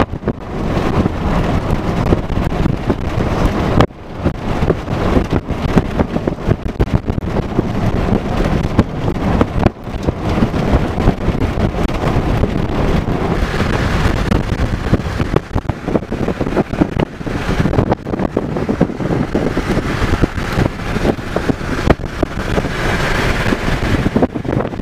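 Strong wind rushing and buffeting against the microphone, mixed with the road noise of a moving vehicle, dropping out briefly about four and ten seconds in.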